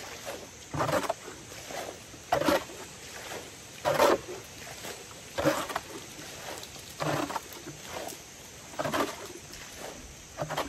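Water being bailed out of a shallow fish pond by bucket: a rhythmic splash of scooped and thrown water about every second and a half.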